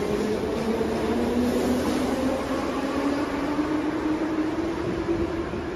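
Metro train running: a steady rushing noise with an electric motor whine that rises slowly in pitch as the train gathers speed.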